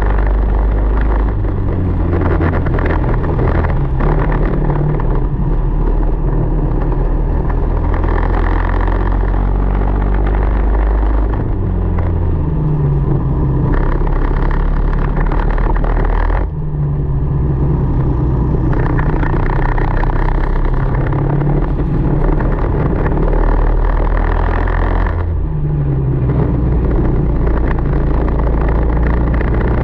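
Tillotson 225 single-cylinder four-stroke kart engine at racing speed. It is heard from on board, its pitch climbing under acceleration and dropping off when the throttle lifts for corners, about 11, 16 and 25 seconds in.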